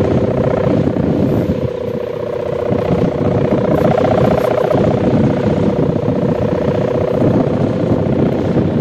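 Kite sendaren (a hummer bow with a plastic ribbon) droning steadily in the wind with a deep, buzzing tone, over low wind rumble on the microphone.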